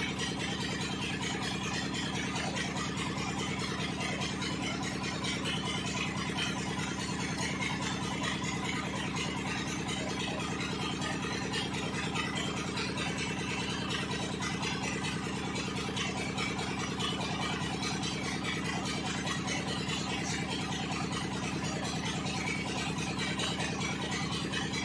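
An engine idling steadily, its speed unchanging.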